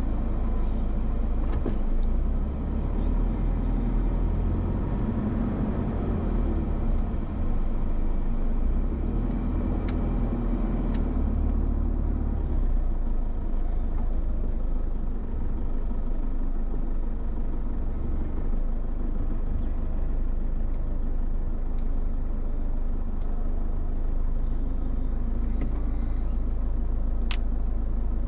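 Car on the move: a steady low rumble of engine and road noise, with a few faint clicks.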